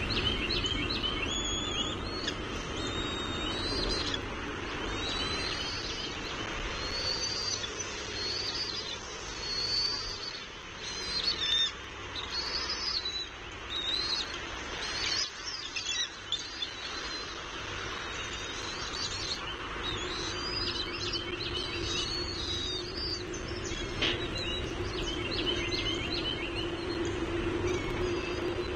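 Birds chirping and calling in repeated short phrases over a steady low background rumble, with a steady low hum joining about two-thirds of the way through.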